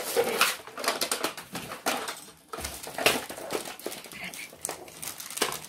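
Hard plastic toy-tower pieces and packaging being handled: irregular clacks, knocks and rustling. The sharpest clack comes about three seconds in.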